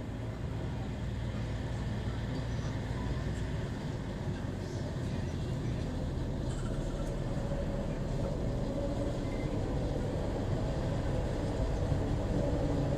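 Diesel locomotive engine rumbling steadily and growing slowly louder as the locomotive draws near on the next track. A humming tone joins about halfway through.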